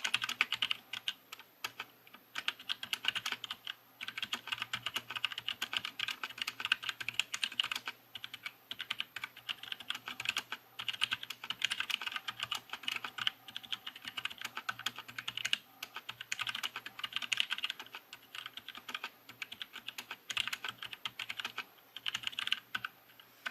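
Fast typing on a DZ60 mechanical keyboard fitted with Jailhouse Blue switches: Gateron Blue clicky switches with rubber spacers that freeze the click jacket, so the click is gone and the keys bottom out softer and quieter. Continuous runs of keystrokes, with brief pauses every few seconds.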